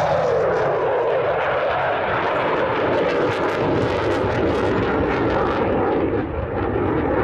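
Eurofighter Typhoon's twin EJ200 turbofan jet engines at high power with afterburner lit: a loud, continuous jet roar with a steady crackle running through it.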